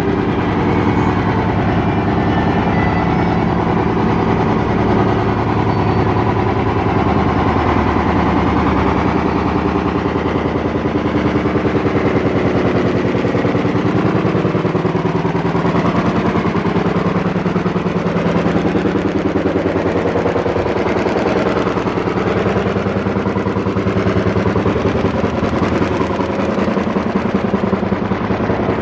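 Loud, steady, rapid rattling drone with a low hum underneath, from a malfunctioning arcade shooting gallery.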